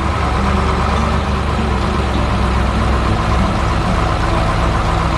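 Heavy truck engine running steadily and evenly, its sound mostly low-pitched: the sound effect for a tow truck driving away.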